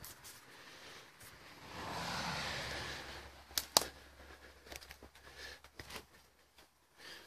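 Footsteps and rustling in dry leaf litter, with scattered small clicks and two sharp snaps just before the midpoint that are the loudest sounds. A car passes on the road about two seconds in, its tyre noise and rumble swelling and fading.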